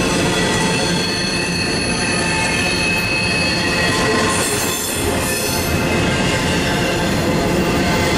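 Double-stack intermodal freight train passing close by: steel wheels rolling over the rails in a continuous loud rumble, with steady high-pitched ringing tones from the wheels and rails layered on top.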